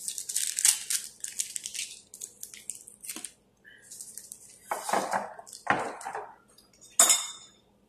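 Fork scraping and clinking against a ceramic bowl as noodles are stirred, mixed with the crinkle of a plastic sauce packet being handled. One sharp clink near the end is the loudest sound.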